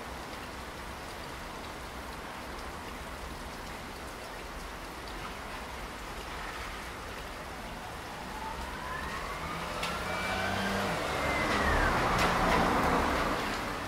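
Steady rain falling. In the second half a vehicle passes: its sound swells with a rising and then falling tone, is loudest near the end, and drops away.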